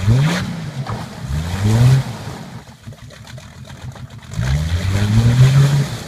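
1997 Jeep Grand Cherokee ZJ's engine revving in three rising surges, the last and longest from just past the middle, as the bogged-down Jeep tries to drive out of a mud hole.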